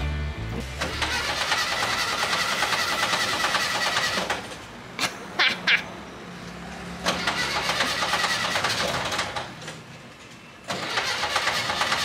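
Volkswagen Kombi van's starter cranking the engine in three tries of a few seconds each, with pauses between, the engine not catching.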